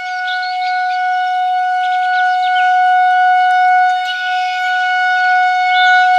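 Synthesized Federal Signal 2001-130 siren sounding a steady single tone at constant pitch, its loudness swelling gently. Short bird-like chirps are scattered over it.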